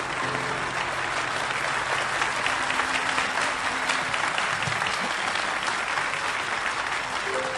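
A large audience applauding, with dense, steady clapping.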